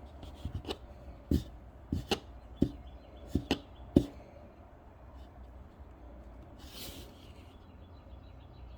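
Parts of a Harrelson 5MM modular trumpet mouthpiece being handled and fitted together: a quick run of sharp light clicks and taps in the first few seconds, then quieter handling with a brief rustle near the end.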